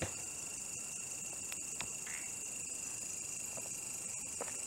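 Steady chorus of crickets and other night insects, a continuous high-pitched shrilling, with a few faint clicks over it.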